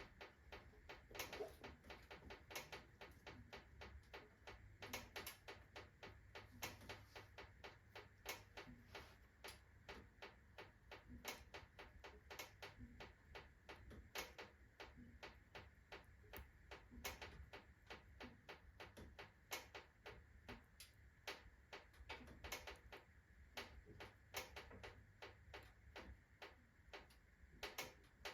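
Cast-iron wood stove ticking and clicking irregularly, a few sharp clicks a second with some louder ones among them, as the iron expands from fast heating after kindling was added.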